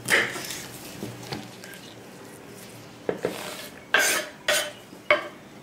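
Kitchen clatter of pots, dishes and utensils being handled: a sharp clank at the start, a couple of light knocks about a second in, then a run of sharp clatters between about three and five seconds in.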